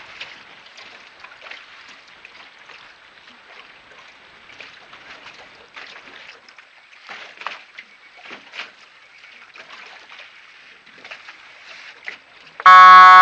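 Wind and choppy water slapping against a motorboat's hull, with occasional small splashes. Near the end a horn sounds one loud, steady blast.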